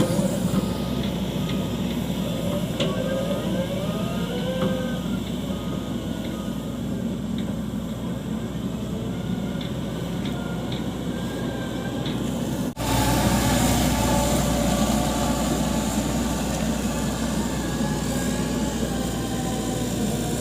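Excavator's diesel engine running steadily under work, with a whining tone that rises and falls. About thirteen seconds in the sound cuts out for an instant and comes back louder and fuller.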